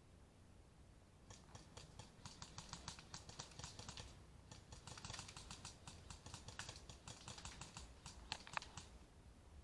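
Faint, rapid clicking, about seven sharp clicks a second, in two runs of about three and four seconds with a short break between them, as distant airsoft guns firing.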